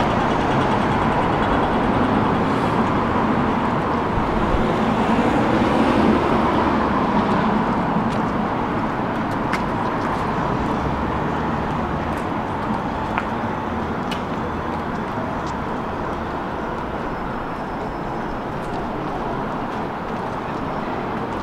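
Road traffic on a city street: a steady wash of passing vehicles, with one passing loudest around five to seven seconds in.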